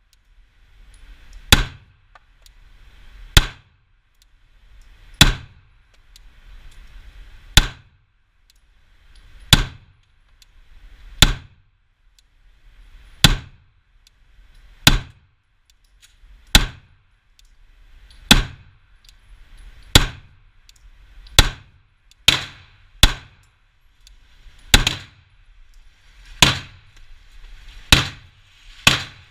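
Glock 17 9 mm pistol fired at a steady, unhurried pace, about eighteen shots, one every second and a half to two seconds, each a sharp crack with a brief echo.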